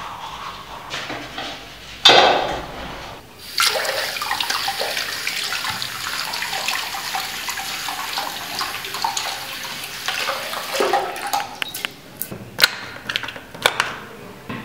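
Tap water running into a ceramic washbasin while hands are washed under the stream. A short loud burst of noise comes about two seconds in, and a few sharp clicks come near the end.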